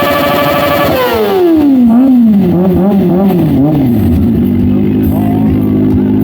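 Kawasaki ZX-25R inline-four engine through an Orion aftermarket exhaust, held at high revs and then released, the pitch falling fast. It is blipped a few times on the way down and settles to a steady idle.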